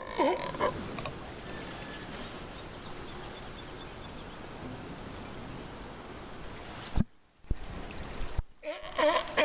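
Steady wash of water lapping around rocks, with short wavering calls from young California sea lions at the start and again near the end. A sharp knock about seven seconds in.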